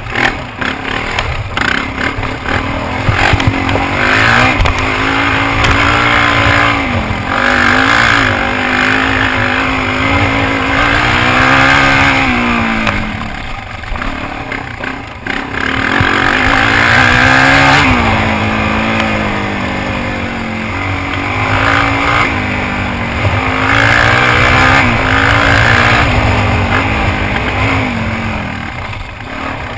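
Suzuki DR-Z400 dirt bike's single-cylinder four-stroke engine being ridden hard, revving up and falling off again and again as the throttle is worked, with a few short let-offs near the middle.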